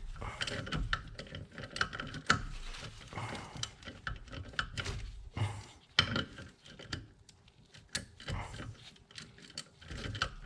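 Metal hand tools clinking and scraping against a brake fitting in a run of irregular clicks and knocks, as a socket is tried on a fitting that it doesn't fit.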